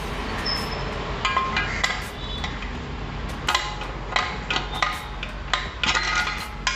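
Metal tools and parts clinking and knocking together in irregular handling, a series of sharp hits with short metallic ringing that bunch together in a couple of quick clusters.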